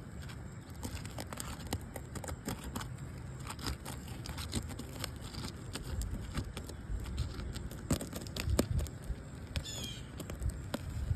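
Asphalt shingles crackling and snapping as a roof snake is worked under them to break their sealant strips, an irregular run of clicks and scrapes. A bird calls briefly near the end.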